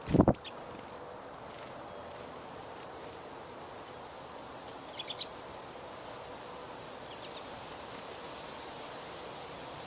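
A loud, low thump right at the start, then a steady outdoor background hiss with a few short, high finch chirps, a quick group of three about five seconds in.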